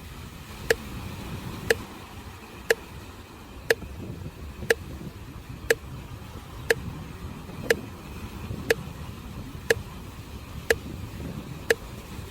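A sharp tick exactly once a second, like a metronome, pacing the breathing, over a steady wash of waves on the shore.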